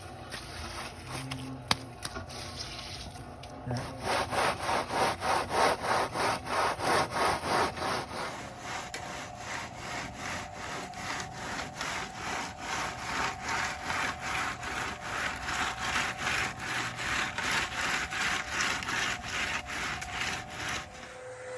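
Rhythmic back-and-forth scraping of a hand tool over wet concrete, about two to three strokes a second, as the fresh pour is worked flat. A steady hum joins about eight seconds in.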